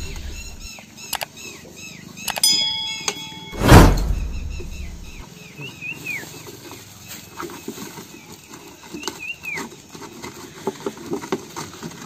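Spectacled cobra hissing loudly from under a clear plastic container, a long rushing blast about four seconds in that dies away slowly. Small birds chirp in short repeated calls throughout.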